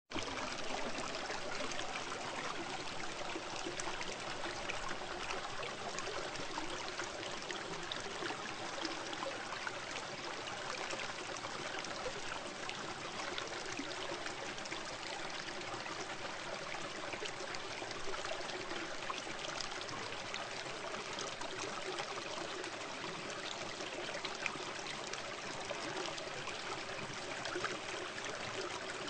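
Steady rush of running water, with a few faint ticks scattered through it.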